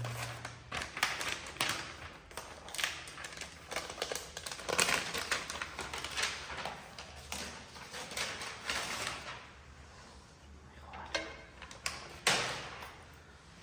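MacBook Pro packaging being handled during unboxing: irregular paper and cardboard rustles, crinkles and small taps, with a louder scraping rustle near the end.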